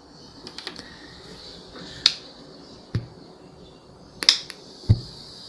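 Sharp clicks and two dull knocks from hands working an SD card at the card slot on the front panel of a Ricson RAV-2336 speaker, over a faint steady hiss.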